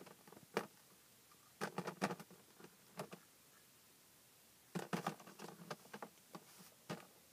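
Small plastic toy pieces clicking and knocking together as a child picks one up and sets it on a growing stack. The sounds come in several short clusters of clicks.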